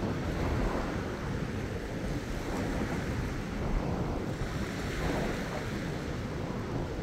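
Small ocean waves lapping and washing over a low rocky reef shelf, the wash swelling and easing several times. Wind rumbles on the microphone underneath.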